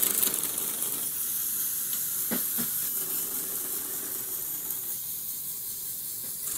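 Automated LEGO loom running: a steady whir from its small electric motors and plastic gearing, with two short clicks about two and a half seconds in.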